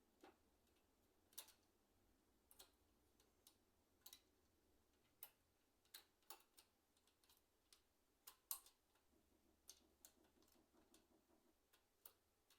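Faint, irregular clicks and taps of plastic keyboard parts being handled and fitted together while an ICL membrane keyboard is reassembled, about two small clicks a second at uneven spacing.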